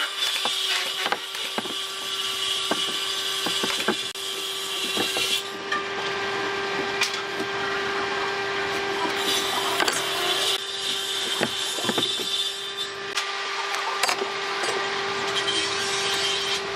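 Wooden beams and a metal combination square being handled on a wooden tabletop: scattered light knocks and taps. Under them runs a steady hum and a high hiss that stops and starts.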